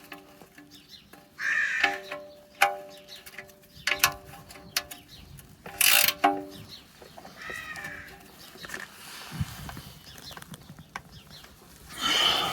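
Sharp metallic clicks with a ringing tone, in bursts, from a 17 mm spanner or ratchet tightening the sump drain bolt. A crow caws in the background twice, about 1.5 seconds in and again about 7 seconds in.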